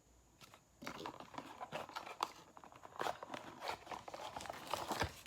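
Gift packaging being handled and opened by hand: irregular rustling and crinkling of paper and plastic with small taps, starting about a second in.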